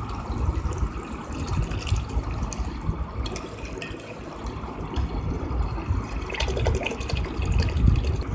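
Water poured in a steady stream from a jug into a stainless steel bowl, splashing into the tamarind chutney and spices as the bowl fills.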